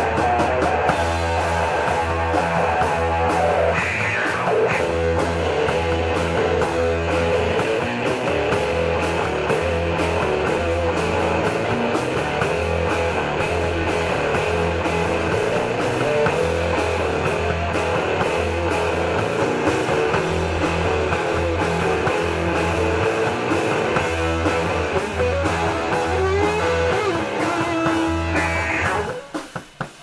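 Live rock band playing: electric guitars over a drum kit with steady cymbal strokes and a heavy low end. The song stops suddenly about a second before the end.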